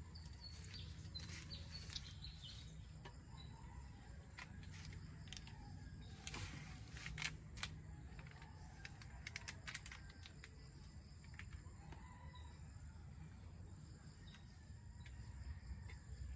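Faint outdoor ambience: birds chirping, over a steady high insect buzz. A few sharp clicks come about six to ten seconds in.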